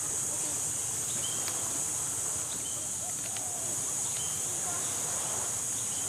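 A steady, high-pitched insect drone, with faint short chirps repeating about every second or so.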